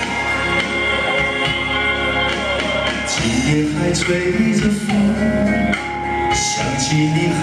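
Instrumental backing music plays, and about three seconds in a man starts singing a slow pop ballad into a microphone over it.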